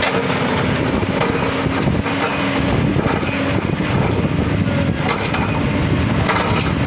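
Excavator working: a steady engine hum under dense mechanical clattering and grinding noise.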